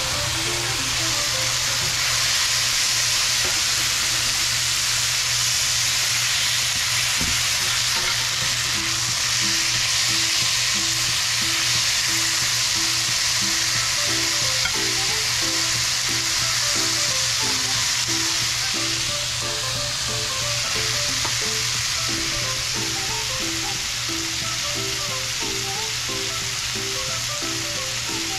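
Onions, peppers and tomatoes sizzling in a hot cast-iron skillet, stirred with a metal spatula; a steady frying hiss.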